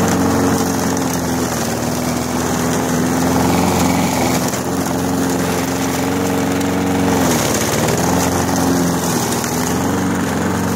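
Toro walk-behind lawnmower's small engine running steadily while cutting through tall grass. About seven seconds in its pitch sags briefly and recovers.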